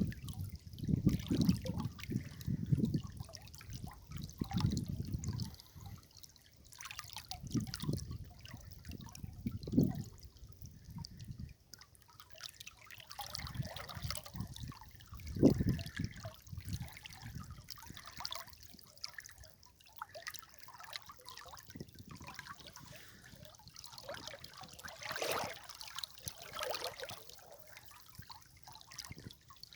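River water trickling and splashing, rising and falling in irregular surges, with one louder splash about fifteen seconds in.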